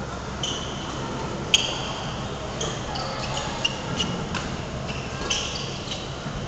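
Badminton doubles rally: sharp clicks of rackets hitting the shuttlecock, the loudest about a second and a half in, among repeated short squeaks of players' shoes on the court floor.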